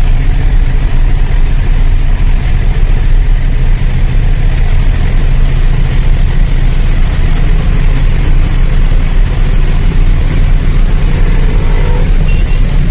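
Truck engine and road noise running as a steady, loud low rumble.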